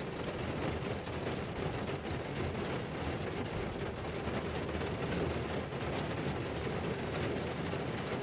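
Heavy rain drumming on a car's roof, heard from inside the car: a steady, dense patter of drops.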